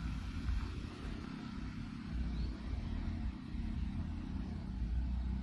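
Low, steady rumble of road traffic, swelling and easing slightly.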